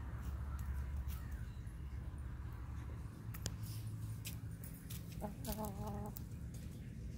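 A hen clucking: one short run of clucks lasting about a second, a little over five seconds in, over a steady low rumble with faint scattered clicks.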